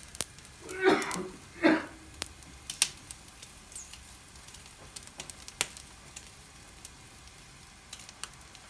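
Chicken yakitori skewers sizzling over white charcoal on a commercial grill, a soft steady hiss broken by many sharp crackles and pops as fat drips onto the coals. Two short louder bursts come about a second in.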